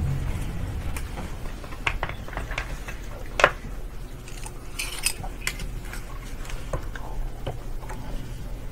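Glass microscope slides being swapped on the microscope stage: scattered small clicks and clinks of glass and metal, the sharpest about three and a half seconds in, over a steady low hum.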